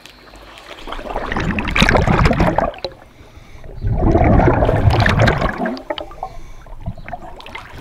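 Scuba diver's exhaled air bubbling out underwater, heard through an underwater camera: two long bubbly bursts, each about a second and a half, with a quieter gurgle between them.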